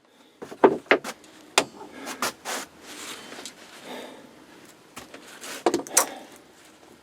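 Metal parts being handled in a workshop: scattered knocks and clinks, with some scraping in between.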